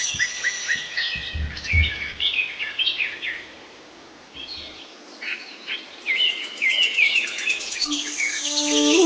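Small birds chirping and twittering, many short calls overlapping, with a few low thumps in the first two seconds. Music with held, steady notes comes in near the end.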